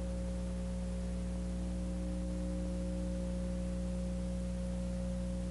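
A steady low hum made of several held tones over a faint hiss, unchanging in pitch and level.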